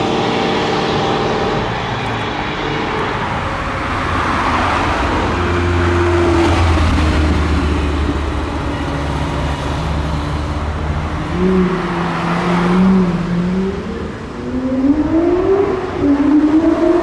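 Italian sports car engines running at low revs as cars move off, then one accelerates near the end, its pitch climbing, dropping back and climbing again.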